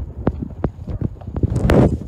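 Footsteps walking at a steady pace on a paved station platform, sharp steps about three a second. Near the end a brief rush of noise, louder than the steps, cuts across them.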